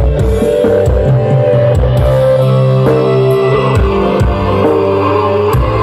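Loud music with a strong bass line and a steady drum beat, blasting from a large outdoor speaker stack.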